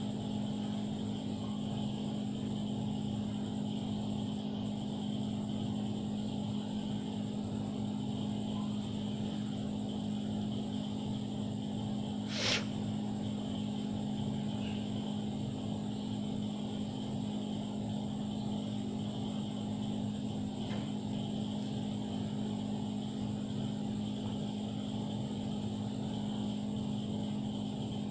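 Steady low machine hum, with a single sharp click about twelve seconds in.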